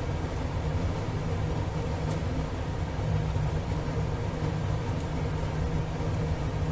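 Steady low rumbling noise with no breaks or distinct knocks.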